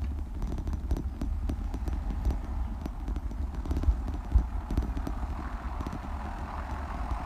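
Irregular rattling and knocking of a bicycle and its mounted camera rolling over brick paving, over a steady rumble of wind on the microphone. A hiss grows in over the last couple of seconds.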